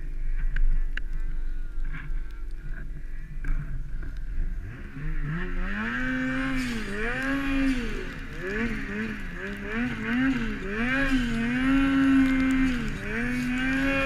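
Ski-Doo 850 turbo snowmobile engine running low at first, then revving up about five seconds in and rising and falling again and again with the throttle as the sled works through deep, heavy snow, the turbo working hard.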